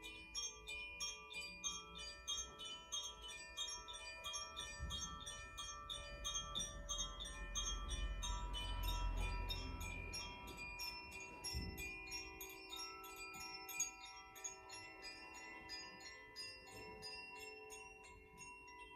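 Koshi chimes ringing softly as they are swung, with quick tinkling strikes about three or four a second over a wash of overlapping sustained tones. A low rumble swells and fades in the middle, and a couple of sharp clicks sound later on.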